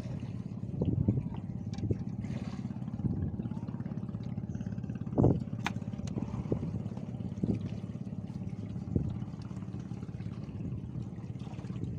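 A small boat engine running steadily with an even low hum, with a few short knocks, the loudest about five seconds in.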